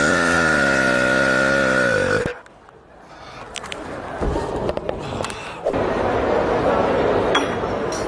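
A long, loud burp lasting about two seconds, held on a low steady pitch. It is followed by quieter, rougher noise with a few sharp clicks.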